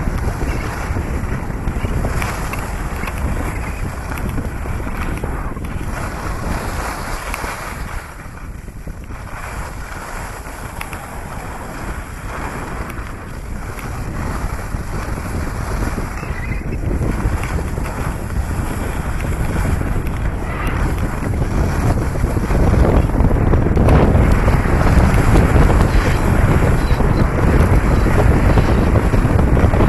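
Wind buffeting the microphone, a steady rushing noise that eases briefly about eight seconds in and grows louder over the last third.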